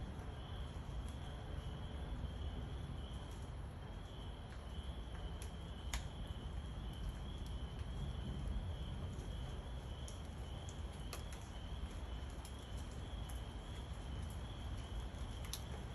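Night thunderstorm ambience: a steady low rumble under a continuous high, wavering chorus, with scattered faint sharp ticks.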